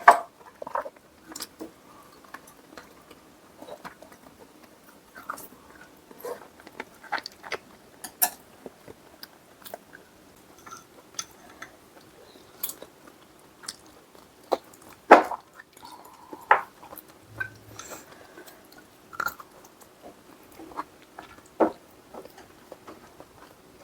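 Close-up chewing and biting of food, with irregular sharp clicks and smacks, a few louder ones past the middle.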